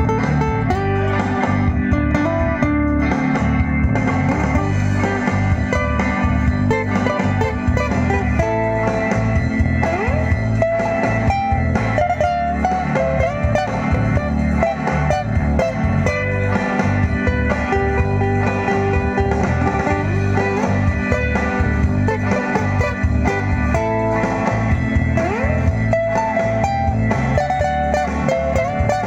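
Instrumental music led by a guitar playing melodic lines with bent notes over a steady low accompaniment, with no singing.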